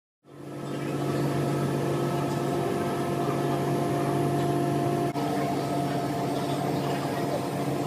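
Steady hum and whir of a powered-up Okuma MA-550VB vertical machining center's motors, pumps and fans, with several steady tones.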